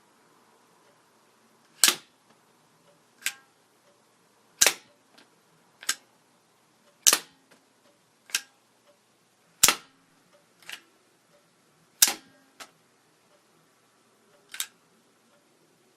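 Five-shot rubber band hand gun firing its rounds one by one: five sharp snaps about two and a half seconds apart, each followed by a quieter click.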